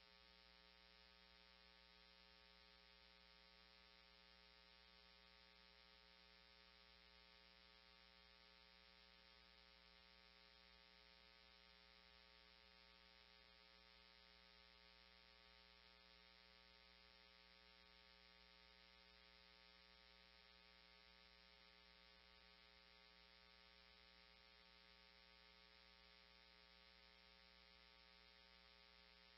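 Near silence, with only a very faint, steady electrical hum.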